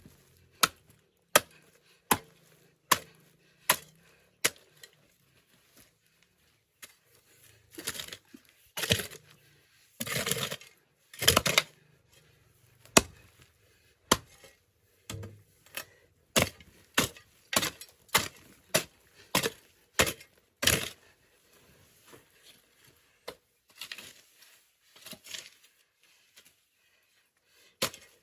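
Repeated chopping blows, sharp strikes about one or two a second, with a few longer, rougher stretches around ten seconds in and a short pause near the end.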